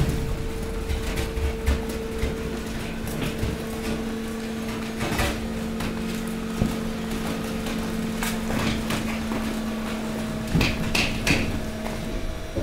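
Hydraulic waste compactor running: a steady pump hum, one of its tones dropping out about two-thirds through and a higher one coming in near the end. Over it, scattered knocks and a burst of crackling near the end as plastic and mixed rubbish shift and crush under the press.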